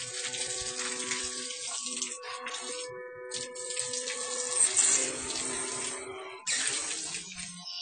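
A thin stream of water pouring and splashing into a black plastic tub, with a short break about three seconds in.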